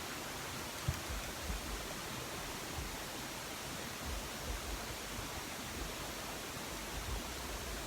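Steady even hiss with a faint low thump about a second in.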